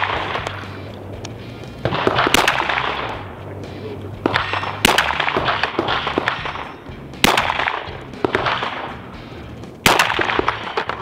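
9mm Glock pistol seated in a CAA Micro Conversion Kit, fired in slow single shots: about four in all, roughly one every two and a half seconds. Each shot is followed by a short echo.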